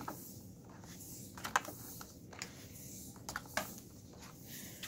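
Power cord of a Dirt Devil Breeze upright vacuum being wound around its plastic cord hooks: scattered light taps and clicks as the cord knocks against the plastic, bunched about a second and a half in and again past three seconds.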